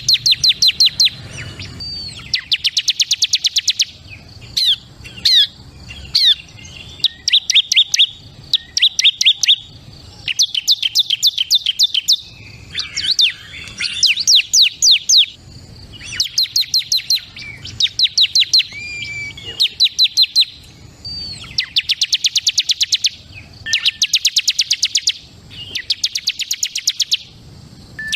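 Bar-winged prinia (ciblek) singing: fast trills of sharp, high, evenly repeated notes in bursts of about a second, one after another with short pauses, mixed with a few single chirps and slurred calls.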